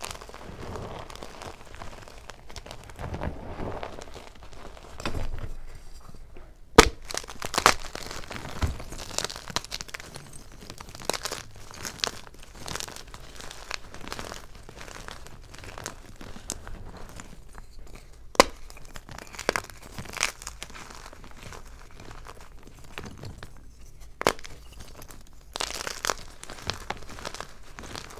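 Hard blocks of Xtraining gym chalk crushed and crumbled by hand: continuous gritty crunching and crackling as the chalk breaks into powder, with a few sharp snaps as harder pieces break, the loudest about a quarter of the way in.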